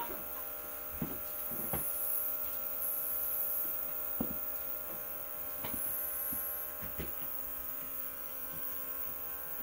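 Small electric compressor of a Luminess airbrush makeup system running with a steady hum, feeding the airbrush gun, with a few light clicks.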